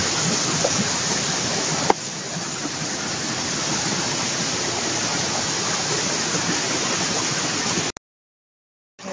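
Steady rush of running water from a stream, with a click about two seconds in; the sound cuts out completely for about a second near the end.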